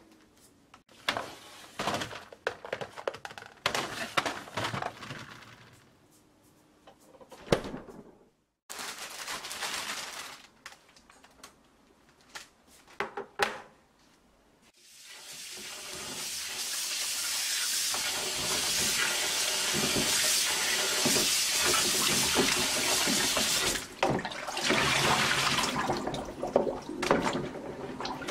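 Rustling plastic and light clicks as containers and a plastic produce bag are handled. From about halfway, a kitchen tap runs steadily into a plastic colander bowl while cucumbers are rubbed clean by hand.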